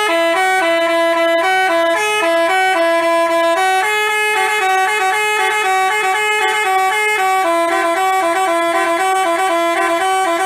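Basuri 'telolet' multi-trumpet bus horn playing a quick melody, loud steady horn notes changing pitch several times a second.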